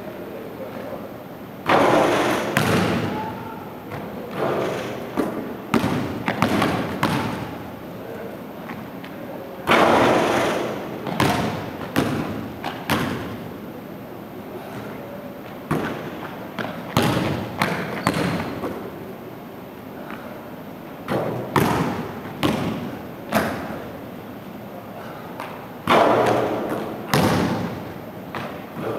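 Irregular thuds of a basketball bouncing on a hardwood gym floor and striking the hoop, each with a hall echo; a few impacts are much louder than the rest.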